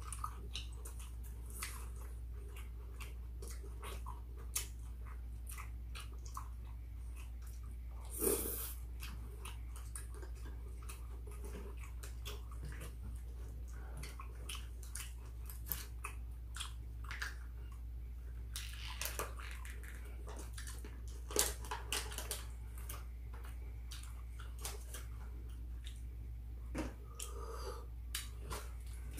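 Close-up chewing and biting of grilled chicken and rice, with scattered small crunches and clicks of chopsticks on bowls, over a steady low hum.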